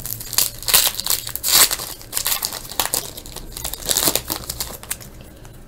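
Foil wrapper of a 1999 Upper Deck SP Authentic basketball card pack crinkling and tearing as it is pulled open by hand, a dense run of crackles that dies down near the end.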